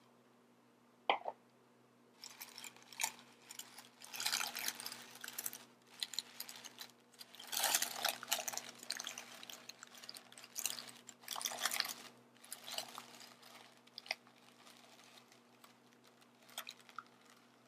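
Rustling, crinkling and tearing of wrapping as a giant surprise egg is opened by hand, in irregular bursts that thin out near the end.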